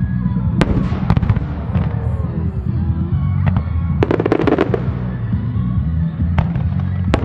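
Fireworks display: a constant low rumble of shell booms with sharp separate reports. A rapid burst of crackling comes about four seconds in.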